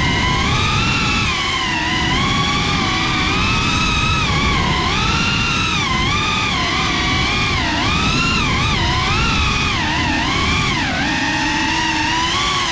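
Whine of a Cinelog35 FPV cinewhoop's brushless motors and ducted propellers, heard on board, its pitch rising and falling constantly with the throttle over a rush of wind and prop wash.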